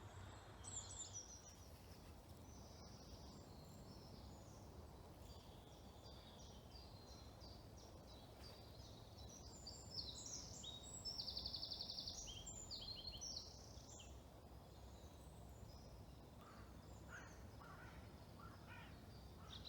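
Faint woodland birdsong: scattered high chirps and whistles, with a fast buzzy trill about ten seconds in, over a low steady background hum.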